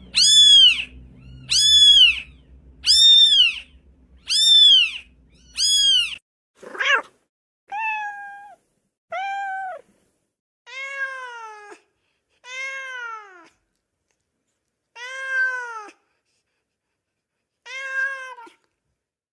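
Cat meowing over and over: about five high-pitched meows in quick succession, then after a short break a run of lower-pitched, drawn-out meows spaced a second or two apart.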